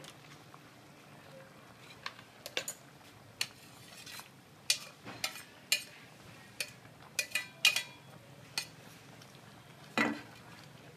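Metal spoon clinking and tapping against a stainless steel pot as shredded fish is scraped in: a dozen or so sharp, irregular clinks, then one louder knock near the end.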